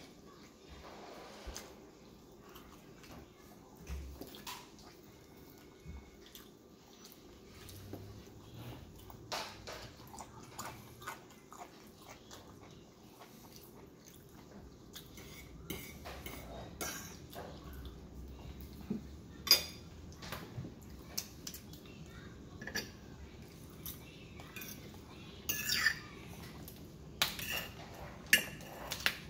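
Eating at close range: fingers pulling apart chicken meat and chewing, with a metal fork clinking and scraping on a ceramic plate in scattered sharp clicks, most of them in the second half.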